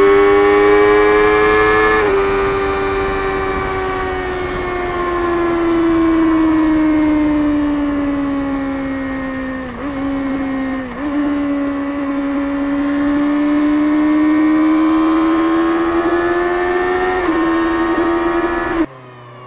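Kawasaki Ninja ZX-6R 636 inline-four engine through its stock exhaust, running hard on the move. Its pitch eases down slowly over several seconds, dips briefly twice about ten and eleven seconds in, then climbs back up. The sound falls away suddenly near the end.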